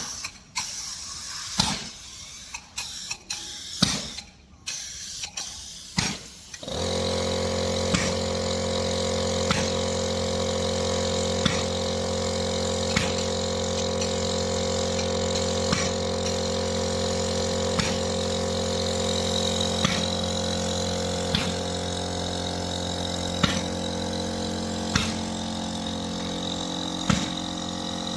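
Short spraying hisses and knocks, then about seven seconds in a motor-driven machine starts and runs steadily with a low hum. A sharp tick comes about every second and a half, as from the pump stroke of a polyurea spray rig.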